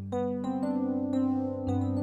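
Instrumental intro of a band song led by piano-style keyboard chords, which begin at the very start with fresh notes struck about twice a second over held tones.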